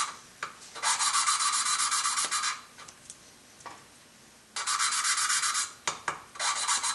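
Valve lapping in a Volvo S70 2.4T cylinder head: a valve spun rapidly back and forth against its seat with a suction-cup lapping stick, the grinding compound making a gritty rasp in three bursts with a pause in the middle. The compound is pretty well spent.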